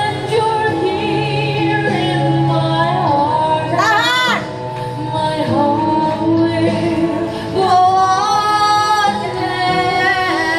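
A song with a woman singing long held notes, with vibrato and sliding pitch, over backing music.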